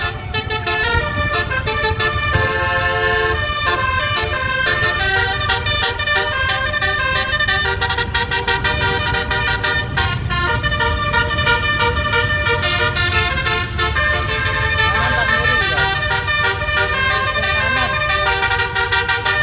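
Bus telolet horn with twelve trumpets (a 'basuri' horn) playing a tune, one steady horn note after another in quick steps, over a low rumble.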